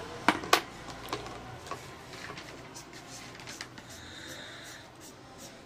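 Two sharp clicks near the start, then scattered small ticks and a scratchy hiss of a felt-tip marker rubbing on paper as it colours in.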